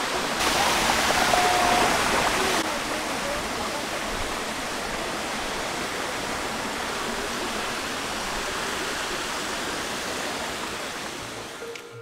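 Water of a stream rushing over rock slabs: a steady, even rush, louder for about the first two seconds.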